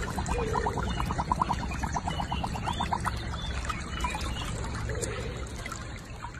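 Water sloshing and trickling around a husky lying in a shallow muddy puddle, with a quick, even run of short ticks over the first three seconds or so.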